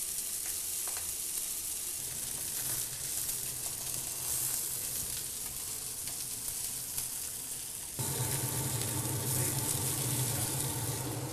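A whole trout sizzling in oil on a hot flat-top griddle, a steady frying hiss. About eight seconds in, a steady low hum joins it.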